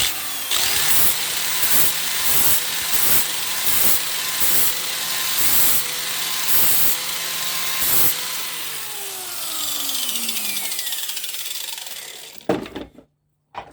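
Electric angle grinder with a fine, worn sanding disc running, touched again and again against a scissor blade's cutting edge: a steady motor whine with a series of short grinding passes, a little over one a second. About eight seconds in, the grinder is switched off and its whine falls in pitch as the disc spins down, followed by a knock near the end.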